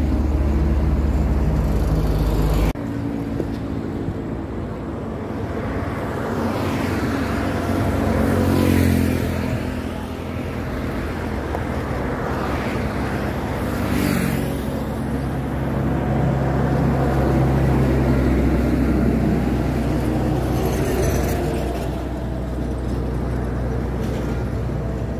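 Expressway traffic going past: a steady rumble of cars and trucks, with vehicles swelling up and fading away as they pass close by, most plainly about nine and fourteen seconds in. A heavy low rumble at the start cuts off abruptly about three seconds in.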